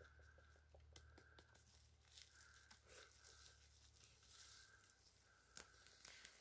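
Faint crackling and rustling of dry fallen leaves and twigs as a hand digs mushrooms out of the leaf litter, with a sharper crack near the end.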